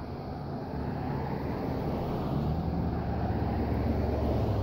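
Distant Durango & Silverton K-28 narrow-gauge steam locomotive working, a low rumble of exhaust that grows steadily louder, with some wind on the microphone.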